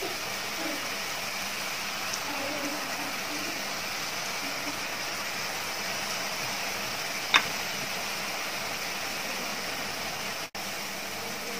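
Pakkavada dough deep-frying in hot oil, a steady sizzle. About seven seconds in comes a single short sharp tick, and the sound cuts out for an instant near the end.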